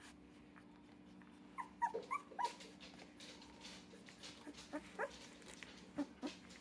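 Two-week-old puppy squeaking and whimpering in short, high cries that slide up and down in pitch: a quick run of them about a second and a half in, then a few more around the five- and six-second marks.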